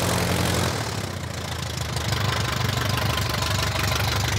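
The small piston engine of a Baby Great Lakes biplane is running near idle with its propeller turning, just after an ether-assisted hand-prop start on its first run in about 27 years. Its note drops about a second in and turns more uneven, then holds.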